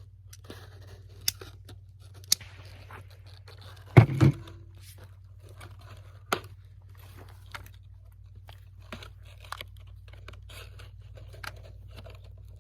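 Scattered small clicks and clacks of cartridges and gear being handled, with one sharp, much louder double knock about four seconds in.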